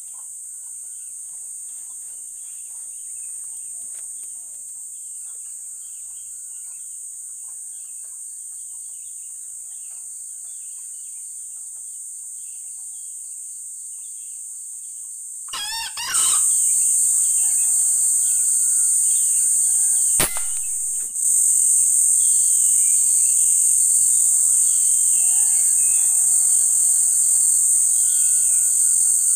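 Steady high insect drone with scattered bird chirps; about sixteen seconds in, a short wavering crow of a red junglefowl, after which the drone grows louder. About twenty seconds in comes one sharp rifle shot.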